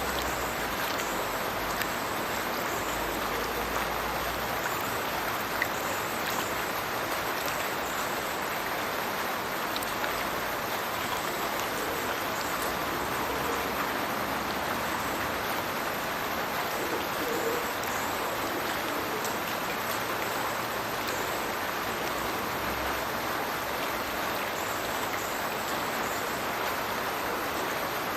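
Steady rushing and splashing of the Stirches Burn falling from its culvert into the River Teviot, an even, unbroken wash of water noise.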